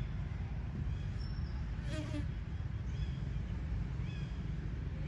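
Outdoor ambience: a steady low rumble, with faint short high chirps scattered through and one brief pitched call about two seconds in.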